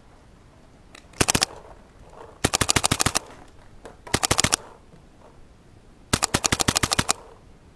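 WGP Oracle Autococker paintball marker firing four quick strings of sharp pops at about ten shots a second, the first string short and the last one the longest.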